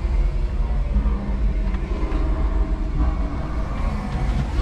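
Steady low rumble of a 5-ton electric forklift driving across a concrete warehouse floor, heard from inside its cab.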